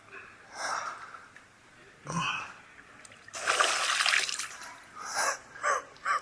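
A person in icy water breathing hard in sharp gasps and exhales, the cold-shock breathing of a cold plunge. A longer, louder rush of noise comes about three seconds in, and short voiced gasps follow near the end.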